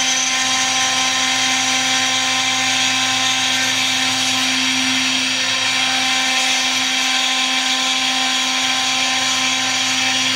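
A milling spindle runs at a steady speed while it cuts textolite (fabric-based phenolic laminate). It makes an even, high whine over a low hum.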